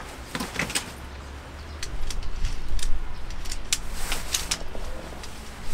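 Handling noise from pitching a dome tent: nylon fabric rustling and poles clicking and scraping, a string of short sharp sounds, with a low rumble through the middle that is loudest around three seconds in.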